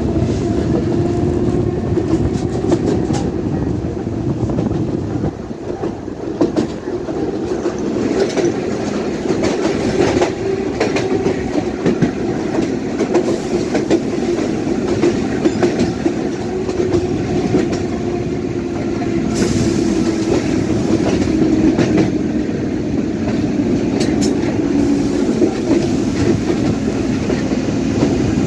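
Budapest HÉV electric suburban train running, heard from an open window: wheels clacking irregularly over rail joints under a steady hum and rushing running noise.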